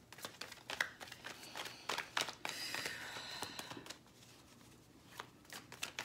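A deck of tarot cards being shuffled by hand: a run of quick flicks and taps of card on card. They stop about four seconds in and start again near the end.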